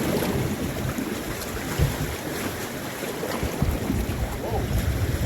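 Wind buffeting the microphone in irregular low gusts, over a steady wash of sea water against the shore.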